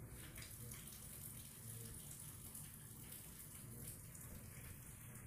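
Faint, steady sizzling hiss of chopped flat beans and crushed peanut powder being stirred in a hot kadhai.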